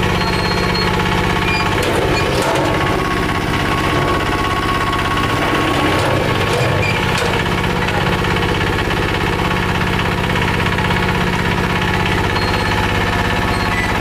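Single-cylinder Changfa diesel engine running steadily, driving the winch that hoists and tips the bucket of a mini concrete lift, with a few light knocks from the lift.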